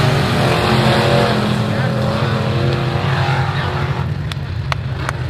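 Dirt-track B-Mod race car engine running, a steady low drone with a wavering pitch that eases off about four seconds in. A few sharp clicks near the end.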